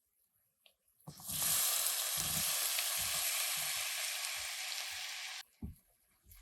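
Food sizzling in hot oil in a pan, with soft low knocks under it about every half second to a second. The sizzle starts about a second in and cuts off suddenly after about four seconds.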